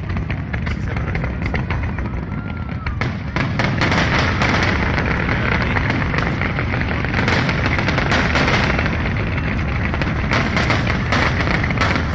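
Fireworks display with many shells and ground fountains going off at once: a dense, continuous crackling and banging that grows louder about three seconds in.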